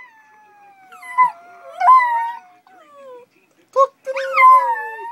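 A Chihuahua and a Maltese howling together: long howls that slide down in pitch, sometimes overlapping, broken by short sharp rising yelps.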